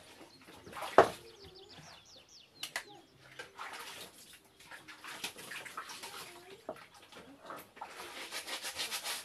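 A sharp knock about a second in, a few brief bird chirps, then a rustling, watery splashing noise that grows louder near the end.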